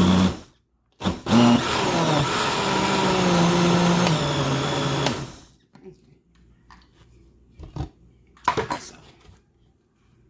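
Countertop blender motor running, stopping for half a second, then starting again and running for about four seconds as it purees vegetables into a seasoning paste, its pitch dropping as it takes the load and then holding steady before it switches off. A few light knocks follow.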